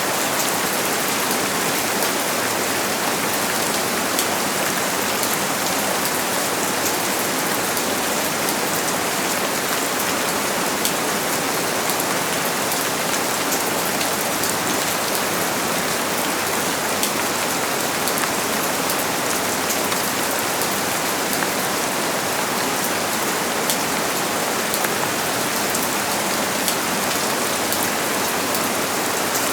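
Steady rain falling and pattering on surfaces, a constant even hiss dotted with the small ticks of individual drops.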